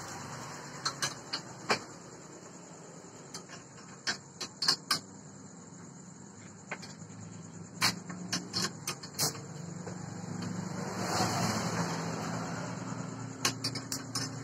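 Scattered sharp metallic clinks and knocks as the parts of a homemade drill-press stand and its clamped hand drill are handled and adjusted. A low engine-like hum swells about ten seconds in.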